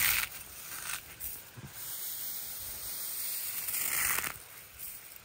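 Icy, crumbly snow being squeezed and crumbled by hand close to the microphone: a grainy hissing crunch that swells at the start, again about a second in and once more around four seconds in.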